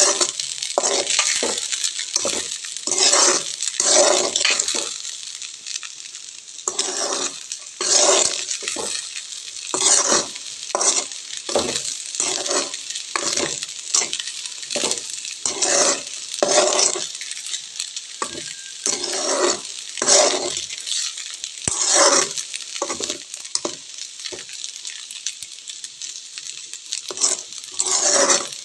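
Ragi flour frying in ghee in a metal pan, sizzling steadily, while a spatula stirs and scrapes it across the pan in repeated strokes about once a second.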